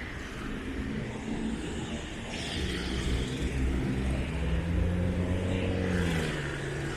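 A motor vehicle's engine passing close by: a low engine hum that grows louder through the middle, then drops slightly in pitch and fades near the end.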